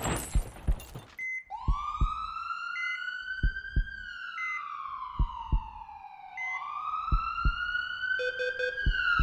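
An emergency-vehicle siren wailing slowly, rising then falling twice, over pairs of low heartbeat-like thumps and a few short high beeps. Music with plucked notes comes in near the end.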